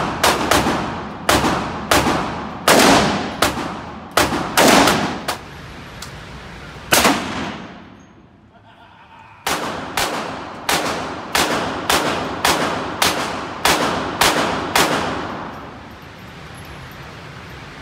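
Rapid gunfire echoing in an indoor shooting range: a fast string of shots about two a second, a pause of about two seconds, then another string of about a dozen shots that stops a couple of seconds before the end. Each shot has a ringing echo tail.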